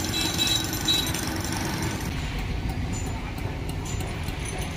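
Steady street traffic noise, a continuous low rumble, with a few brief high-pitched chirps in the first second.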